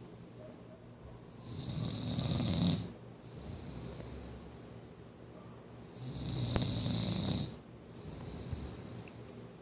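A man snoring in his sleep: two loud snores about four and a half seconds apart, each followed by a softer breath.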